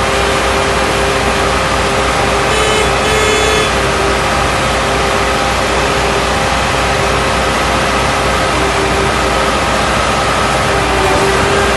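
Heavy engine of concrete-pouring machinery running steadily, with a brief high-pitched whine about three seconds in and the engine note starting to shift near the end.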